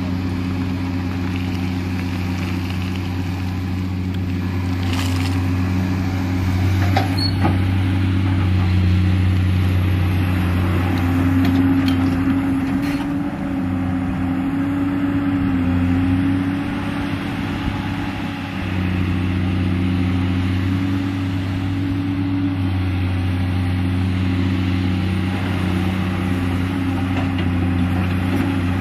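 Komatsu PC210LC hydraulic excavator's diesel engine running steadily under working load while it digs and swings, its note bending up and down as the hydraulics take the load. A few sharp knocks come through in the first half.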